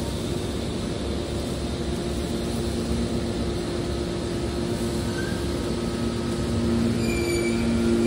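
Hydraulic scrap metal baler running, its hydraulic pump and motor giving a steady hum. The hum grows a little louder near the end, with a faint high whine.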